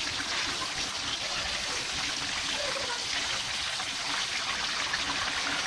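Chicken and vegetable skewers frying in hot oil in a wok, a steady sizzle.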